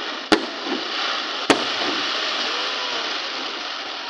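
Fireworks going off: two sharp bangs about a second apart, followed by a long, dense hiss that slowly fades near the end.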